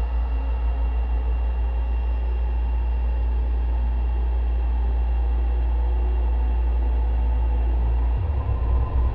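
Experimental drone music: a heavy, steady sub-bass drone under a haze of noise, the low drone breaking into a choppy pulse about eight seconds in.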